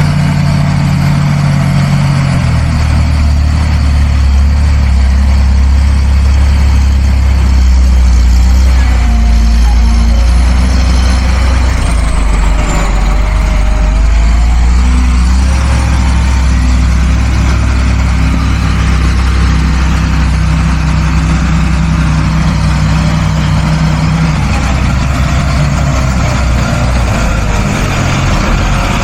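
Tractor diesel engine running steadily, with a low, even drone and small shifts in pitch.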